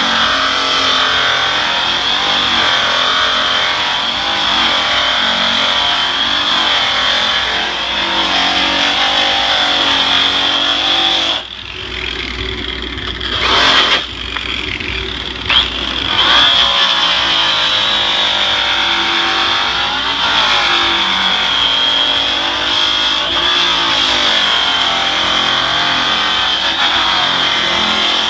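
Makita rotary polisher with an orange buff running loud and steady, a high motor whine over a lower note that wavers as the buff is worked across aluminum diamond plate with brown rouge. About halfway through, the sound drops and changes for a few seconds while the buff is off the plate.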